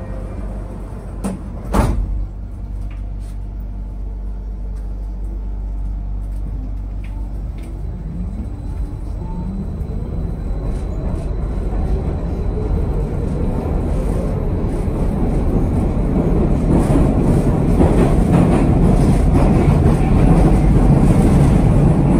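Metro car doors slam shut with a single knock. The train then pulls away: the motor whine rises in pitch and the running rumble grows steadily louder as it gathers speed.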